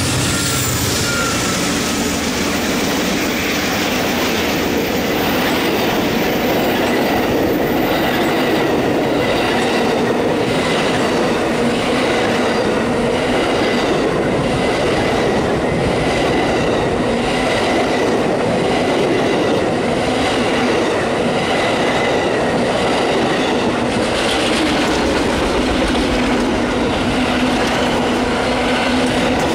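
Amtrak Auto Train passing close at speed. Its GE P42DC diesel locomotive goes by at the start, then a long, steady, loud rush of passenger cars and autoracks with a regular clickety-clack of wheels over rail joints. A faint steady high wheel whine runs through it.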